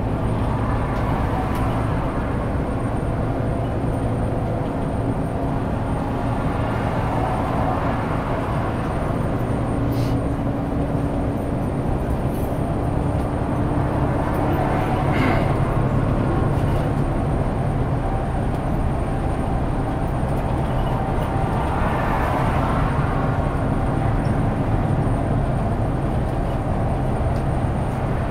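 Inside a Volvo 8900 bus (B8RLE chassis) cruising at motorway speed: the steady drone of its eight-litre six-cylinder diesel engine mixed with tyre and road noise. There are a couple of sharp clicks from the cabin, about ten seconds in and again about fifteen seconds in.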